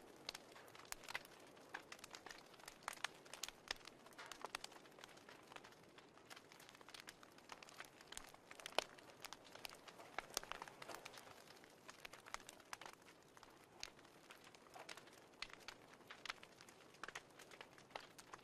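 Fireplace crackling: faint, irregular pops and snaps over a soft hiss.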